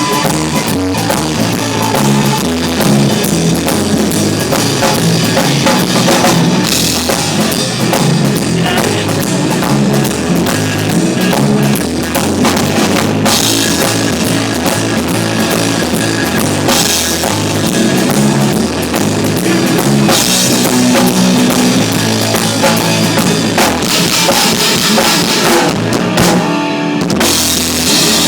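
Live rock band playing through a PA during a sound check, with the drum kit most prominent. The music breaks off briefly near the end, then carries on.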